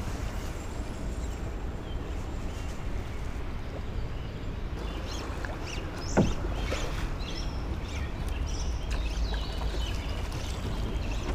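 Ambient sound aboard a drift boat on a river: water moving around the hull over a steady low rumble, with birds chirping from about halfway through. A single sharp knock sounds about six seconds in.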